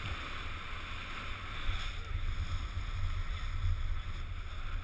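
Wind buffeting a GoPro's microphone in a steady low rumble while skiing downhill, over an even hiss of skis sliding on snow.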